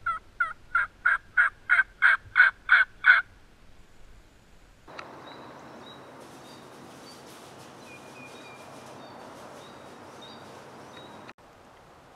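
A run of about ten evenly spaced turkey yelps, each note breaking in pitch, growing steadily louder over the first three seconds. From about five seconds in, a steady rush of wind follows, with songbirds chirping faintly, and it cuts off abruptly near the end.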